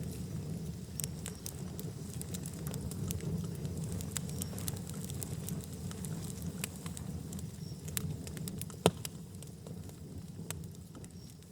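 Wood fire burning in a fireplace: a steady low rumble of flames with scattered small crackles and one louder pop late on.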